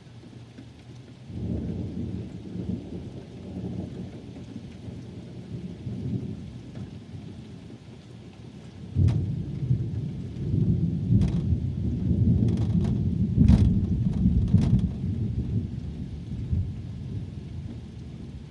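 Steady rain with two rolls of thunder: a low rumble about a second in, then a louder peal from about halfway, with several sharp cracks, that fades away near the end.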